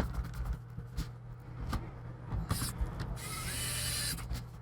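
Handling noise from a laptop under repair: a few small clicks and creaks, with a rubbing hiss about three seconds in, as a screw in the freshly glued hinge mount is worked and checked for tightness.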